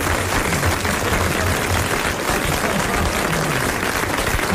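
Studio audience applause, a steady dense clatter of clapping with a low murmur of voices underneath.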